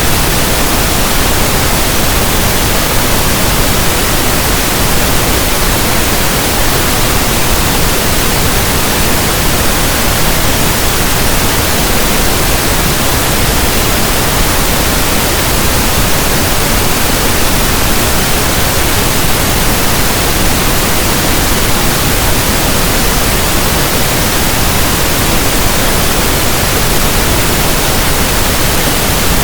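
Steady synthetic pink noise: an even static hiss like a radio tuned between stations, with no change in level or character.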